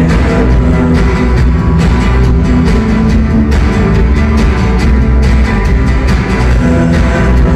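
Rock band playing live, an instrumental passage without vocals over a steady drum beat and heavy bass.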